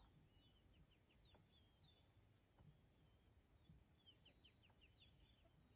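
Near silence with faint wild birds calling: short high chirps and quick falling notes, several birds overlapping.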